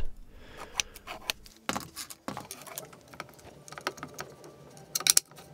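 Light, scattered clicks and clinks of small metal hardware and a hand tool being handled while fitting wheels and screws to acetal plates, with a few sharper clicks near the end.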